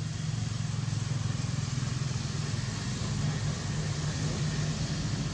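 A steady low engine rumble with a light hiss above it, holding even throughout.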